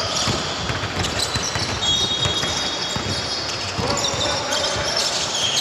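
Basketball bouncing on a court during a game: repeated thuds in a large hall, with a brief high squeak about two seconds in and players' voices near the end.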